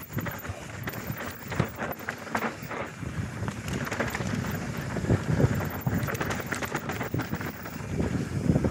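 Mountain bike descending a dry dirt forest trail at speed: tyres running over dirt and roots, the bike rattling over bumps with many small knocks, and wind rushing on the microphone.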